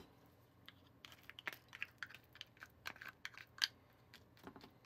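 Quiet, irregular light clicks and crackles of a utensil working a sticky Rice Krispies treat mixture of cereal, butter and marshmallow fluff, with the crisp puffed rice crackling as it is scraped and pressed.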